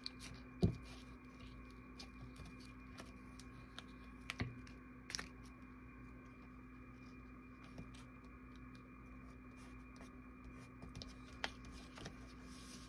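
Quiet handling of paper scraps on a craft table: a few light, sharp taps and clicks as pieces are picked up and pressed down onto a collage, over a steady low hum.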